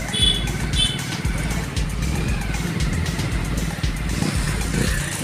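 Steady rumble of a moving road vehicle, its engine and road noise running on, with two brief high-pitched tones in the first second.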